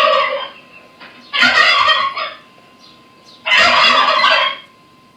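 Turkey gobbling repeatedly, one loud gobble about every two seconds.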